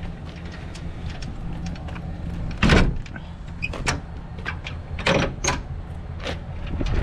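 Boat trailer being lifted and moved by hand: a run of clanks and knocks, the loudest a little under three seconds in, with more near the end, over a steady low rumble.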